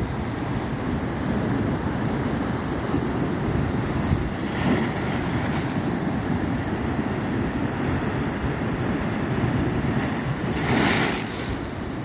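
Sea waves breaking and washing over flat rocks, with wind rumbling on the microphone. A louder crash of surf comes about five seconds in, and a bigger one near the end.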